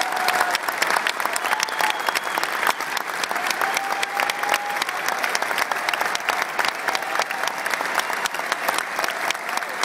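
Large audience applauding: a dense, steady wash of many hands clapping.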